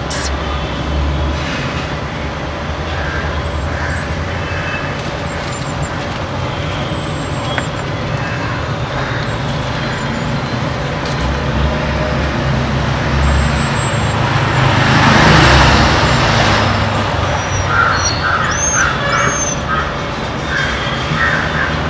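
Steady street traffic noise with vehicle engines running, and one vehicle passing with a rising and falling rush about fifteen seconds in. Two short high chirps come near the end.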